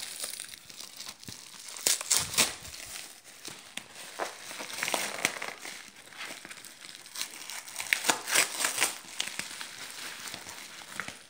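Packaging being crumpled and torn open by hand: irregular crinkling and crackling, with louder bursts of tearing about two seconds in and again around eight seconds in.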